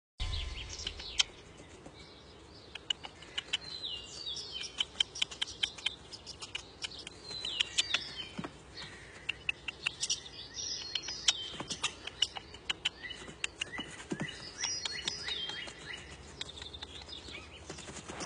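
Woodland ambience: birds chirping in short repeated calls and falling notes, with scattered sharp clicks and snaps throughout.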